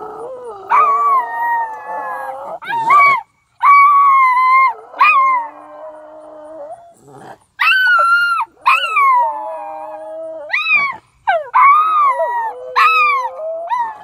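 Miniature schnauzer howling at a horn-like sound from the sky. It gives a series of drawn-out howls, each falling in pitch at the end, with short breaks between them.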